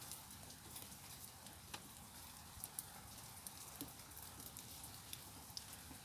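A Siberian Husky–Shar Pei cross chewing on a stick: faint, irregular sharp cracks and clicks over a steady light patter of rain.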